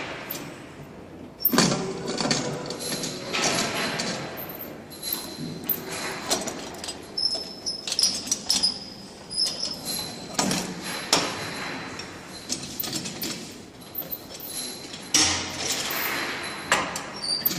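Furnace chamber door being unfastened and opened slowly by hand: a run of metal knocks, clatters and scraping, the loudest knock about a second and a half in and another cluster near the end, with a faint squeak midway.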